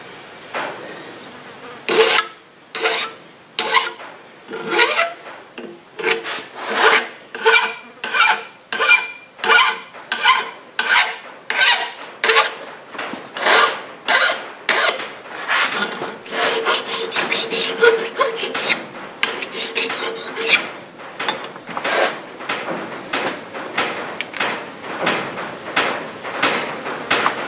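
Hand file rasping along the edge of a cold-forged arrowhead made from a spoon, in steady back-and-forth strokes about two a second, starting about two seconds in.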